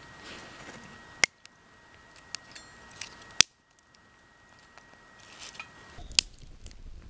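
Wood fire crackling inside a stainless-steel BushBox LF folding stove: a few sharp, isolated pops over a faint background, the loudest about a second in and again about three and a half seconds in.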